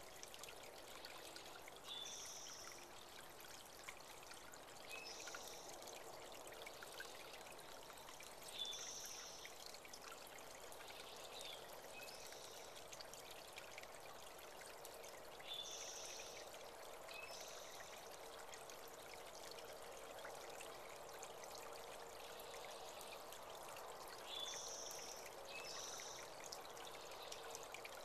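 Small spring-fed creek trickling and pouring steadily. A bird gives a short, high call phrase about every three to four seconds over it.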